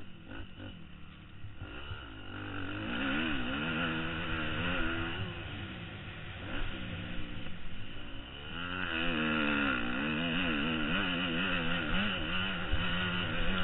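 Motocross dirt bike engine revving up and down in pitch as the rider works the throttle around the track, heard from a helmet camera. It is quieter for the first couple of seconds, then climbs, eases off around the middle, and is held at high revs for the last few seconds.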